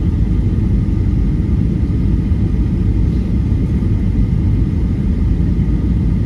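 Boeing 737-800 cabin noise on final approach, heard from a window seat: a steady low rumble of the engines and rushing air, with a faint thin steady whine above it.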